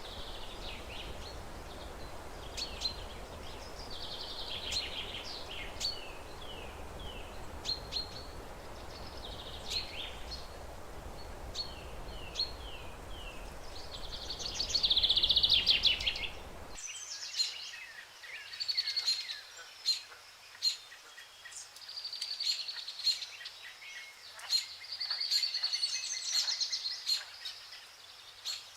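Birds chirping and calling in quick, high, repeated notes, with a dense flurry of calls a little past halfway. A steady background noise under the calls cuts off abruptly a little past halfway.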